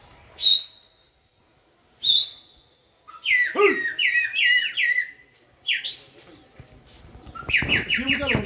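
Person whistling to a flock of pigeons in flight: a few sharp rising whistles, then a wavering trill, then a fast run of repeated short whistle notes near the end.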